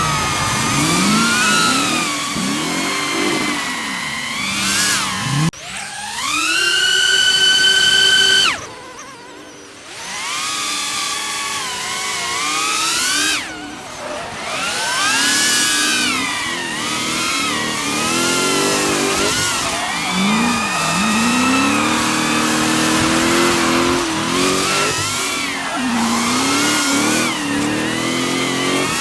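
Drift car engines revving, the pitch rising and falling again and again. The sound drops off sharply about eight and a half seconds in and picks back up a second or two later.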